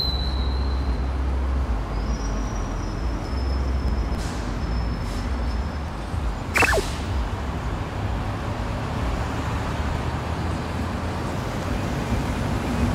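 Steady city traffic rumble of vehicles on the road, with a short falling swish about six and a half seconds in.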